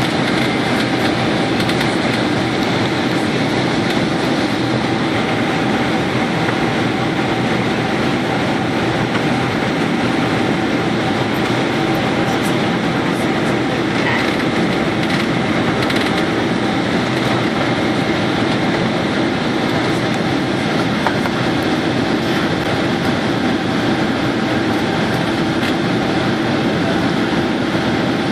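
Steady cabin drone of a Boeing 767-300ER in flight on approach: engine and airflow noise heard inside the cabin from a window seat by the wing, at an even level throughout.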